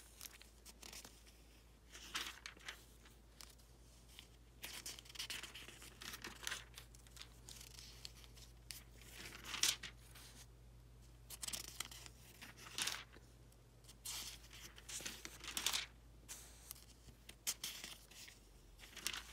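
Thin Bible-paper pages of an ESV Study Bible being turned one after another, each turn a short, crisp rustle, many of them at an irregular pace.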